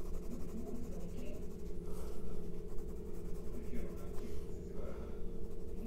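Pencil shading strokes scratching on paper, laying down tone across a drawing, over a steady low background hum.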